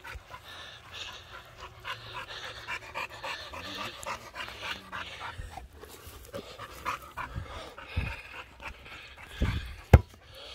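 A six-month-old puppy panting hard in quick, repeated breaths, out of breath from chasing a ball. A few dull thumps come near the end, the loudest just before the close.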